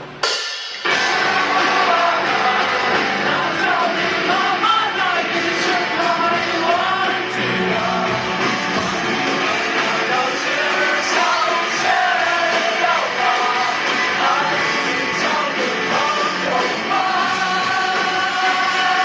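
Rock band with drum kit, electric guitars and singing, coming in loudly and abruptly just under a second in and playing on at full volume.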